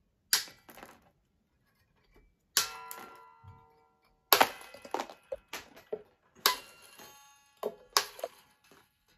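Wire snips cutting slackened electric guitar strings one after another: a series of sharp metallic snips, some followed by a brief ringing of the cut string.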